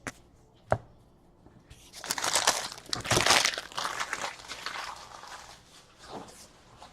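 Card-pack packaging being crinkled and torn open, a run of crackling and tearing lasting about four seconds after a single click.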